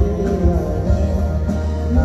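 Live band music with guitar and drums over a heavy bass, in an instrumental passage without the lead vocal.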